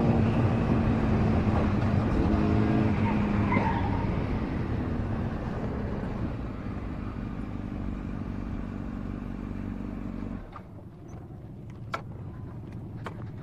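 Sport motorcycle engine running under way, with wind and road noise, gradually getting quieter, then dropping away sharply about ten seconds in. A few sharp knocks follow near the end.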